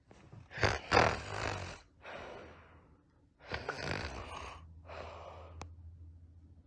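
Snoring: two loud, rasping snores, each followed by a softer breath out.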